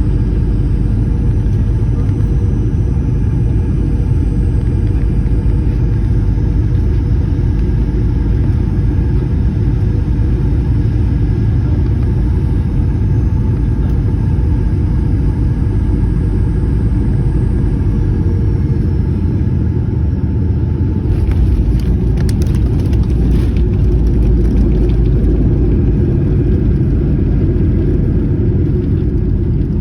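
Ryanair Boeing 737 jet landing: a steady heavy jet rumble with faint engine whines, one high whine falling in pitch a little past halfway. About two-thirds of the way in the rumble grows louder, with a rattling noise for a few seconds.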